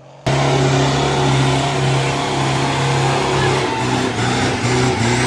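Off-road 4x4 engine running hard at high revs, its pitch held fairly steady with slight dips. The sound cuts in suddenly about a quarter second in.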